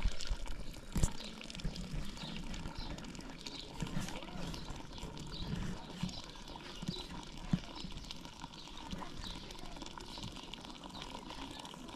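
Animal calls over a steady outdoor background, with scattered short knocks.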